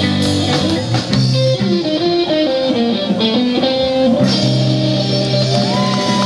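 Live rock band playing a rockabilly song: electric guitar picking a stepping melody line over bass and drum kit, with a bent guitar note rising and falling near the end.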